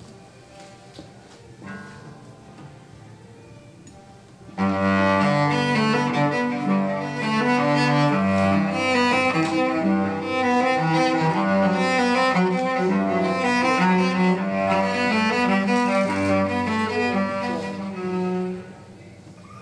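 Solo cello played with the bow: a flowing run of quick notes over low held bass notes. It begins about four seconds in, after quiet room tone, and breaks off abruptly near the end.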